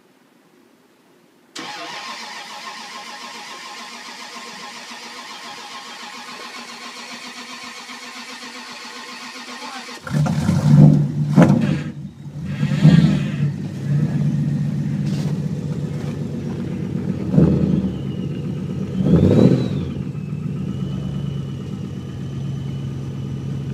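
Toyota Tundra V8 cold-starting at about −33 °C: after several seconds of steady noise the engine catches about ten seconds in, surges four times, then settles into a steady fast idle with a thin high whine.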